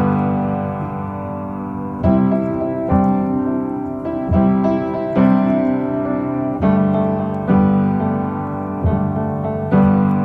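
Instrumental piano music: chords struck roughly once a second and left to ring and fade between strikes.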